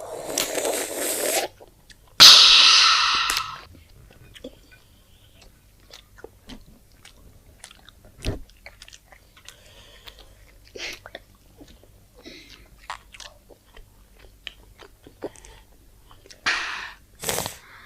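Close-up chewing and crunching of fries and chicken nuggets, with many small crisp clicks and crackles. Near the start there are two loud short noisy bursts, and there is another just before the end.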